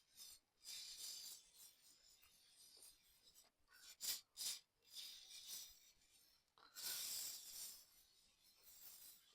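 Aerosol chain lube hissing from a spray can in a series of short bursts, including two very brief puffs in quick succession about four seconds in, as it is sprayed onto a motorcycle drive chain.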